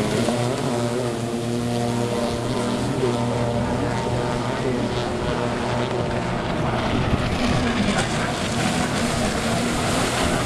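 Several racing runabout jet skis running at speed, a steady engine drone whose pitch shifts as the craft pass and turn, with the rush of water and spray.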